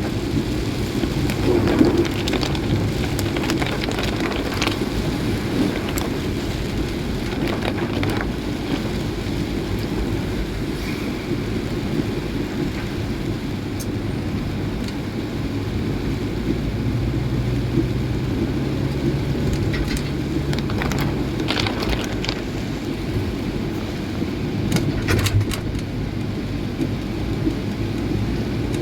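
A vehicle driving in heavy rain: a steady wash of rain and road noise over a low engine hum, with scattered sharp taps.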